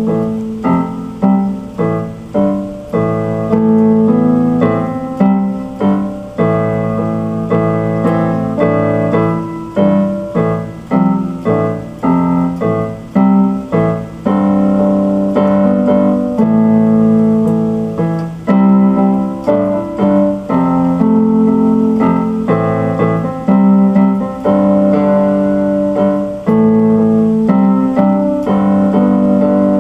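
Instrumental keyboard piano music: a steady run of struck notes and chords.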